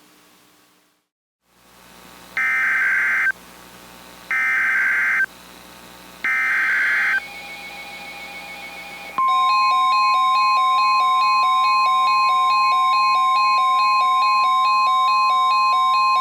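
Three bursts of Emergency Alert System SAME header data, each a harsh digital screech about a second long, two seconds apart. About nine seconds in, a steady high-pitched weather-radio alert tone starts and holds, with a stepping chime-like melody underneath.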